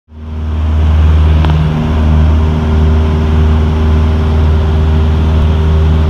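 Light aircraft's piston engine and propeller droning steadily in flight, heard from inside the cabin. It fades in over the first half second, then holds an even, low drone.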